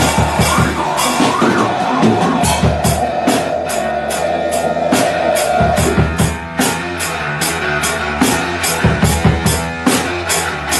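Rock music with a full drum kit keeping a steady beat. A held note sounds through the first half and stops about six seconds in.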